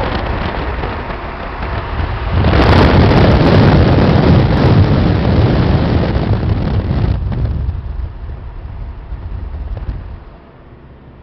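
Wind rushing over the microphone and road noise from a moving car. It swells about two and a half seconds in and drops off sharply near the end.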